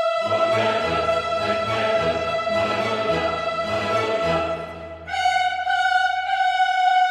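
Orchestral background music with bowed strings: long held notes over a moving bass line, dropping away briefly about five seconds in and then coming back.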